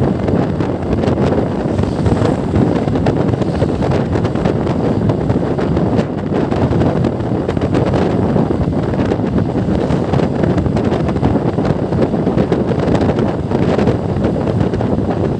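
Loud, steady wind rushing over the microphone of a moving motorcycle, with the motorcycle's running engine and road noise underneath.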